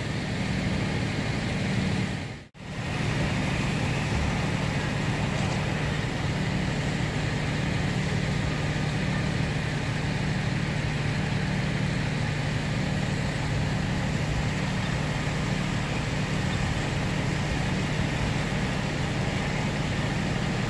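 Fire trucks' diesel engines running steadily at idle, a low constant hum over a wash of outdoor noise, with a momentary dropout about two and a half seconds in.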